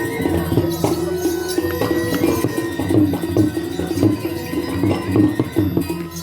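Balinese gamelan playing: ringing metal tones held over a dense, fast run of percussive strikes.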